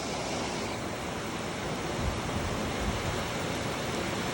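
Heavy rain drumming steadily on a barn roof in a sudden downpour, with a couple of soft low thumps about halfway through.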